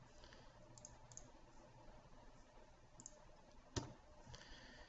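Computer mouse clicking against quiet room hiss: a few faint ticks, then one sharper click near the end.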